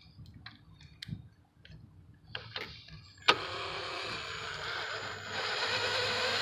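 A few small clicks and knocks of tools being handled, then about three seconds in a cordless drill-driver fitted with an 8 mm socket starts with a sharp click and runs steadily, getting louder about two seconds later, driving in a fastener.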